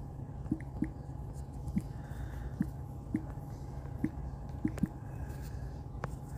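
A flock of hens foraging, clucking in short, soft single notes every half second to a second, over a steady low rumble.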